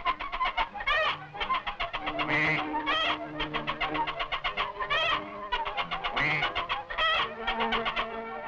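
Cartoon poultry sound effects: crated geese and ducks squawking and clucking rapidly, with a longer honk about every two seconds.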